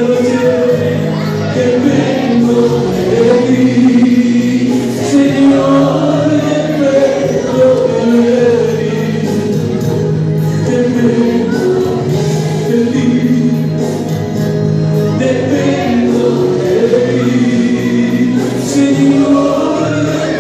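A man singing a Spanish-language worship song into a microphone, amplified through a PA, over continuous instrumental music.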